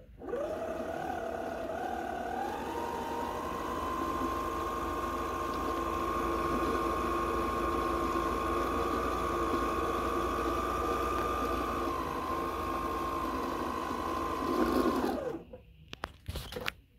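Husqvarna Viking 610 sewing machine's electric motor running at speed to wind a bobbin on its side-mounted bobbin winder: a whine that rises in pitch over the first few seconds, holds steady and stops about fifteen seconds in. A few sharp clicks follow near the end.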